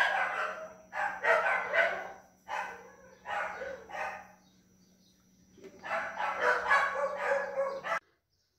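Animal calls in repeated short bursts, then a longer call of about two seconds near the end, cut off suddenly.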